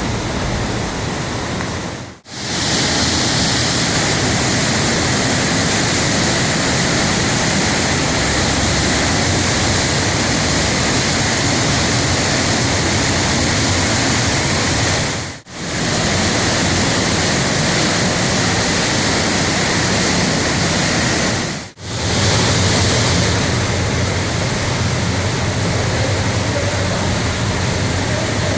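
Loud, steady rush of a large waterfall, the Varone falls plunging through their gorge, cutting out for a moment three times.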